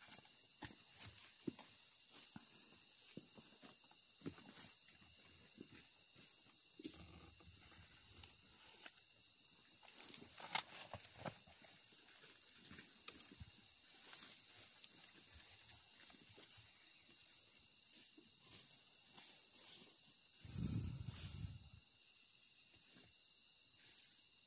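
Steady high-pitched insect chorus with a few faint clicks, and a short low rumble about twenty seconds in.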